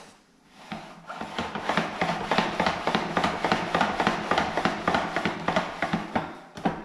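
Boilie rolling table worked back and forth by hand over sausages of bait paste, cutting and rolling them into balls: a rapid run of rubbing clicks and scrapes that starts about a second in and stops just before the end.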